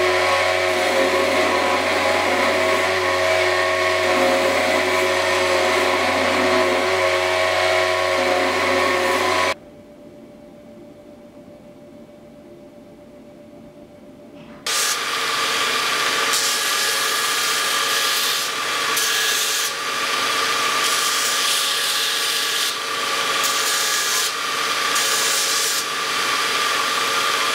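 Belt grinder running, with a knife handle being ground against its sanding belt. About ten seconds in, the grinding drops away to a quiet hum for about five seconds. Then the grinding comes back, rising and falling as the piece is pressed on and eased off the belt.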